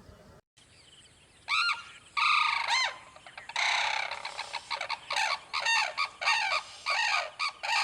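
A pair of Sarus cranes calling together in their duet (unison call): a run of loud, repeated call notes starting about a second and a half in, coming thick and fast through the rest of the stretch.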